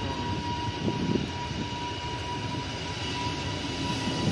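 Aircraft engines running steadily: a constant whine over a rumble.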